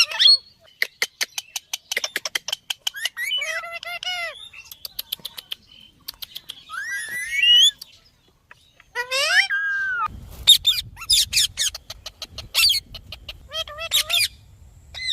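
Ringneck parakeets calling and squawking, with rising and wavering calls that come faster and denser in the last third. A quick run of sharp clicks comes near the start, and a low hum comes in about two-thirds of the way through.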